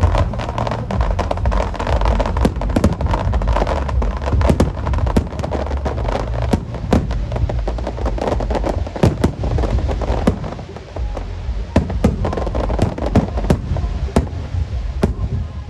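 Aerial firework shells going off in rapid succession: many sharp bangs and crackles over a continuous low rumble of explosions, thinning briefly in the middle before picking up again.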